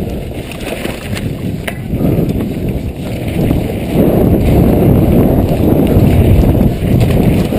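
Wind buffeting an action camera's microphone, mixed with the rumble and rattle of a downhill mountain bike's tyres and frame over a dirt track. A few sharp clicks, and it gets louder about four seconds in.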